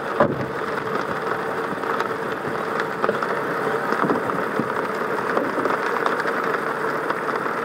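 Car driving in the rain: steady engine and road noise with a faint constant hum and scattered light ticks throughout.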